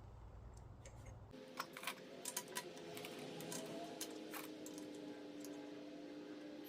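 Faint, scattered light clicks and taps over faint steady tones. A low hum underneath cuts off about a second and a half in.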